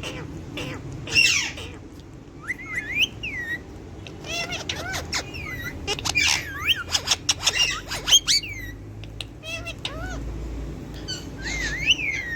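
Alexandrine and ring-necked parakeets calling: a string of short squawks and chirps, with whistled notes that glide up and down in pitch.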